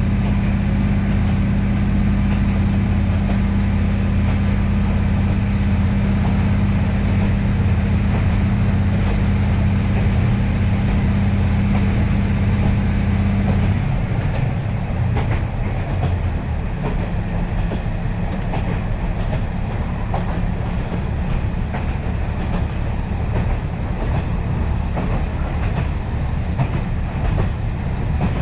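KiHa 40 series diesel railcar running at speed, heard from inside the car: a steady low drone of the diesel engine under power, whose note drops away about fourteen seconds in. The rumble and clickety-clack of the wheels on the rails carry on throughout.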